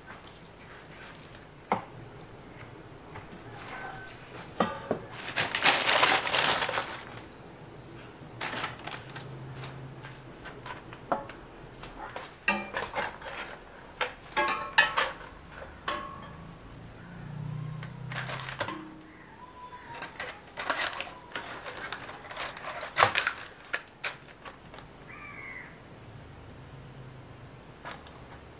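Kitchen handling sounds: scattered clinks and knocks of dishes and utensils, with a louder rustling burst about six seconds in.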